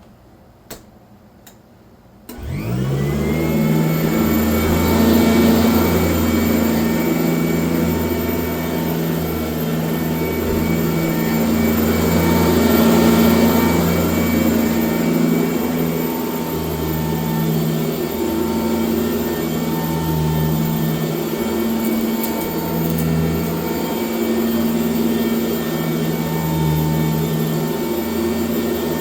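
1996 Sanitaire S663 upright vacuum cleaner switched on about two seconds in: its motor spins up with a rising whine, then runs steadily. The low hum swells and dips as it is pushed back and forth.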